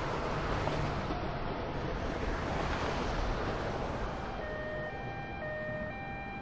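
Steady rushing street noise of traffic and wind. About four seconds in, a two-tone emergency vehicle siren starts up, switching between a low and a high pitch about every half second.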